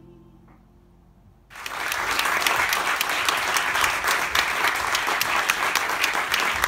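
A held sung note fades out, then after a short hush a theatre audience breaks into applause about a second and a half in, loud steady clapping.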